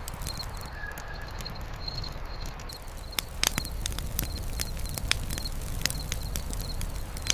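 Wood campfire crackling with irregular sharp snaps and a few louder pops about three seconds in, over a steady low rumble. A faint high chirp repeats steadily in the background.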